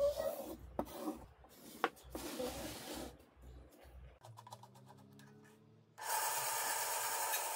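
A marker tip scraping across plywood as a circle is drawn with a PVC-pipe compass jig, with occasional clicks from the pipe fittings. About six seconds in, a band saw is switched on and runs with a steady whir.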